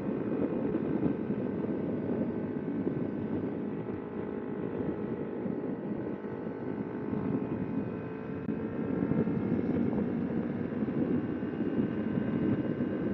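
Kawasaki Ninja 250R's parallel-twin engine running while riding, its note slowly rising and falling with the throttle, with wind rushing over the microphone.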